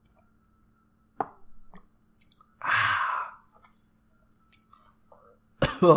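A man knocking back a shot of cinnamon whiskey: a small click about a second in, a harsh breathy exhale from the burn about halfway through, and a sudden loud throat sound near the end.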